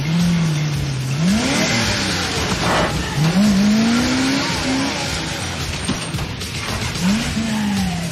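Tow truck engine revving, its pitch climbing and falling three times, with a steady hiss of tyres churning through dirt.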